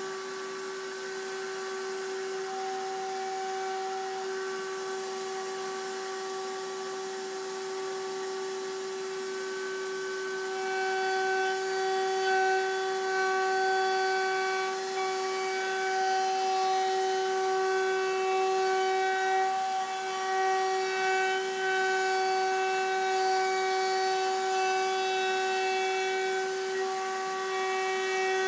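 Table-mounted wood router running at speed with a steady whine, cutting a round-over on the edges of a cherry guitar body. It grows louder and rougher from about ten seconds in as the bit cuts into the wood.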